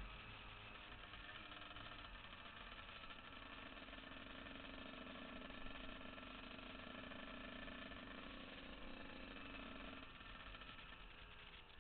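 Yamaha YZ125 two-stroke single-cylinder engine running under way as the bike is ridden. Its note holds steady for several seconds, then shifts about ten seconds in.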